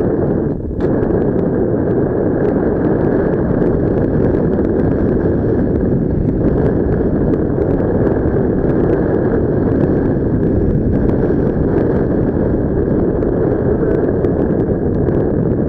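Airflow in paragliding flight, heard as loud, steady wind noise buffeting the microphone. There is a brief drop about half a second in.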